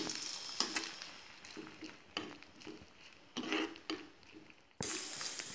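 A metal spatula stirring and scraping grated coconut and dried red chillies frying in oil in a pan, with light clicks and a faint sizzle, as the coconut is fried for tempering. Near the end a steady hiss sets in suddenly.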